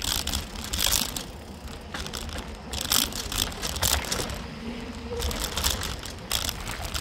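Mountain bike rolling over a dry, leaf-strewn dirt trail: tyres crunching through leaves and the bike rattling over bumps, in uneven bursts over a low rumble.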